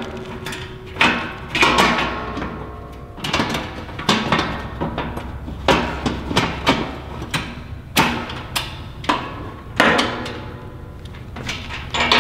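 Background music of struck or plucked notes, with sharp hits about every half second to a second, each ringing out, over sustained tones.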